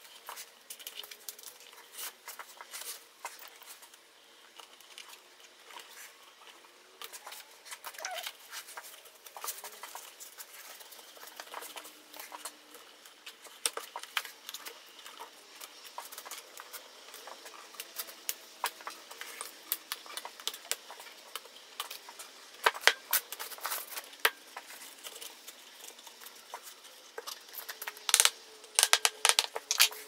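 Hand handling noise on a taped glue-up of wooden staves: scattered light clicks, taps and rustles as bands are wrapped around the box and pressed down. There are louder flurries of clicks in the last third, the loudest near the end.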